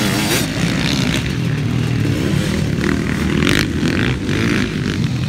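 Motocross bike engines racing past on a dirt track, several bikes at once, revving up and down as the riders work the throttle through the course.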